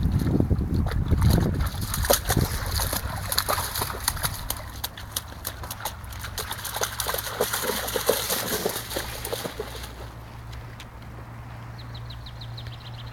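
English springer spaniel wading and splashing through shallow ditch water, with quick irregular splashes from its paws and body. The splashing dies away about ten seconds in as the dog leaves the water.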